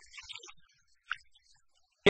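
Faint, broken-up room sound through a microphone, in a pause between louder sounds, with one short faint sound about a second in.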